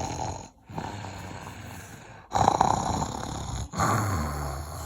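A person snoring loudly in long, rasping breaths, each about a second and a half long, with short pauses between them.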